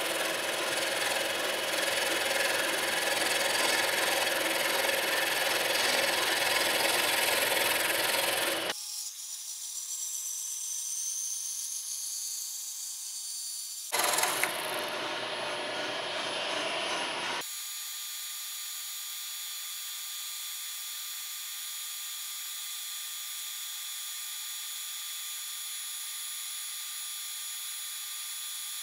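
Milling machine's small end mill cutting G9 glass-reinforced melamine sheet, a steady gritty cutting noise with the spindle running. The noise cuts off suddenly about 9 seconds in, returns for a few seconds around 14 seconds, then gives way to a thinner high hiss with a faint steady whine.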